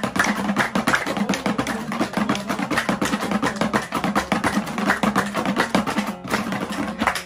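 Afghan dambura music: a long-necked lute strummed in a fast, driving rhythm, with percussion, in an instrumental passage without singing.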